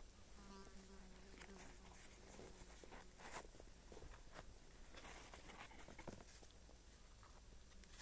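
Near silence with a faint buzz, such as a flying insect makes, for the first three seconds or so, followed by a few soft ticks and rustles.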